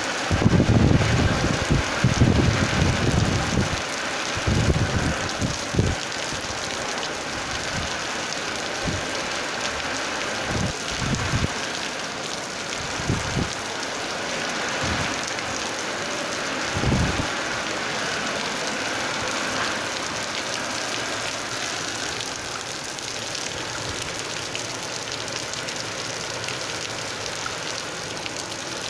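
Steady rain falling, an even hiss throughout. Irregular low rumbles come through in the first few seconds, with a few shorter ones later.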